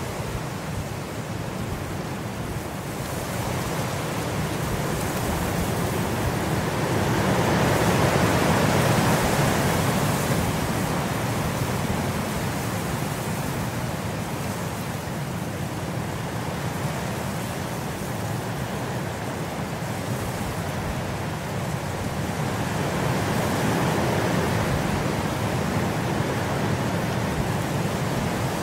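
Steady rain hiss, swelling louder twice and easing back.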